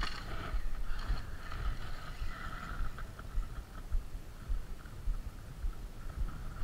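Wind rumbling on the microphone, with a few clicks and rustles in the first second as gear is handled.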